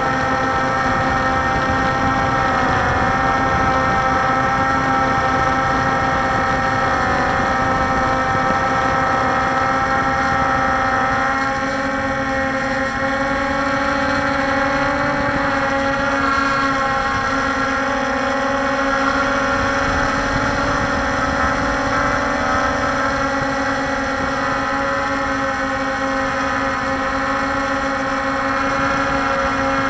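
Walkera Scout X4 quadcopter's electric motors and propellers heard from its on-board camera: a steady whine of several tones over rushing wind and vibration noise. The motor tones shift in pitch a little over a third of the way through.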